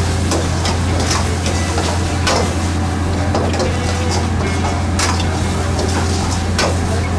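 Metal ladle scraping and clanking against a wok while mushroom Manchurian is stir-fried in its sauce, with a sharp stroke every second or so. A steady low hum runs underneath.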